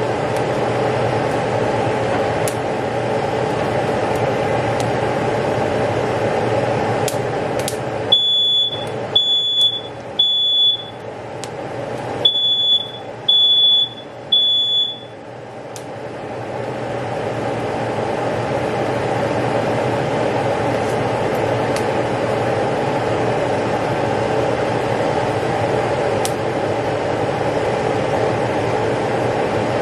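Smoke alarm sounding its three-beep pattern twice: two groups of three short, high, evenly spaced beeps, then it stops. The likely trigger is smoke from peppers charring directly on open gas burner flames. A steady hum runs underneath.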